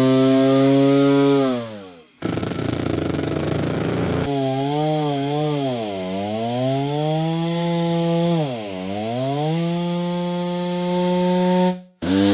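Chainsaw engine running at high revs, then dying away. After a short stretch of rough, noisy running, it revs up and down several times and holds high. The sound stops and starts abruptly where separate recordings are spliced together.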